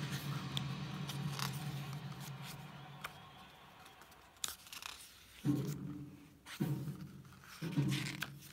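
Thick glossy pages of a hardcover album photobook being turned by hand, with paper scraping and sliding and a few sharp flicks as pages fall over.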